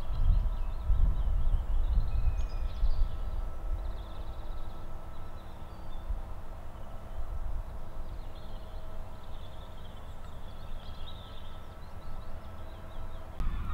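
Open-air countryside ambience: wind rumbling on the microphone, strongest in the first couple of seconds, with faint scattered songbird chirps and a faint steady hum.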